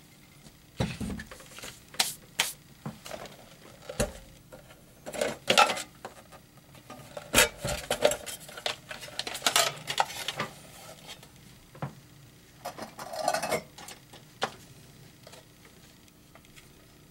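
Irregular clinks, knocks and clatters of hard parts and tools being handled and set down. The sounds come in clusters and thin out near the end.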